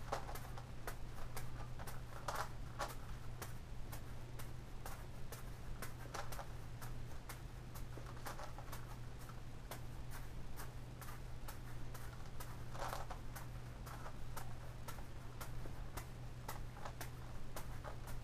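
Irregular sharp clicks and soft taps from juggling while turning a Gigaminx puzzle: balls landing in the hands and the puzzle's plastic layers clicking and rattling as they are turned. A steady low hum runs underneath.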